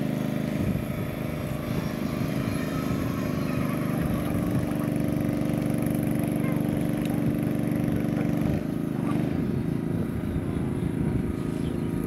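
An engine running steadily, its note shifting briefly about eight and a half seconds in.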